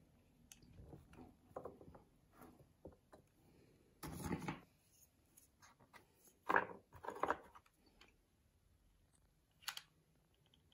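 Faint handling noises of driftwood sticks being placed and pressed together on a wooden tray while being hot-glued: a scatter of light clicks and knocks, a longer scraping rustle about four seconds in, and two louder knocks a couple of seconds later.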